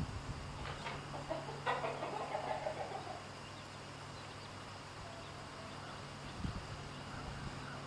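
Chickens clucking, a few short calls in the first three seconds, over a steady low hum.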